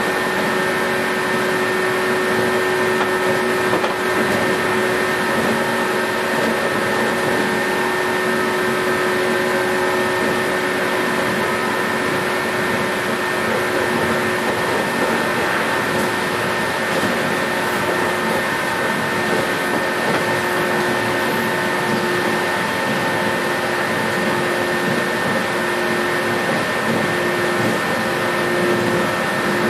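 Inside a JR 117 series electric train running at a steady speed: the traction motors' steady whine over the even rumble of the train moving along the track.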